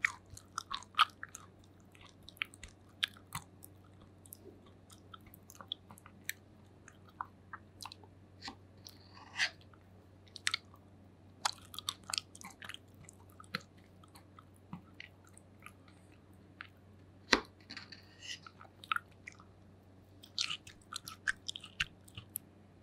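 Close-miked eating sounds: a person chewing bites of matcha cheesecake, with many small sharp clicks and wet mouth noises at an uneven pace. The loudest is a single sharp click about three-quarters of the way through.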